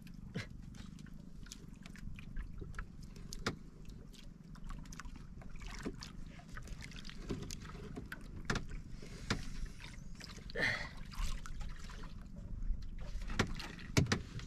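Sea water lapping against the hull of a small drifting outrigger boat, with scattered light knocks and clicks from the handline and hands working on the boat.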